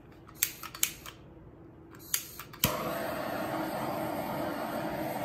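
Handheld butane torch being lit: a few sharp igniter clicks, then it catches with a click a little over halfway through and burns with a steady rushing hiss.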